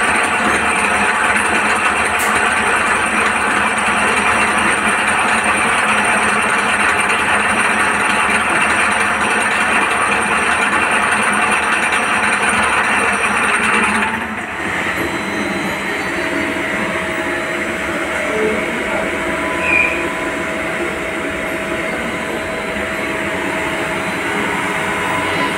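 CNC lathe running: a dense, steady machine noise with several steady whining tones from its spindle and drives. About 14 s in the noise drops suddenly and turns into a lower, quieter hum.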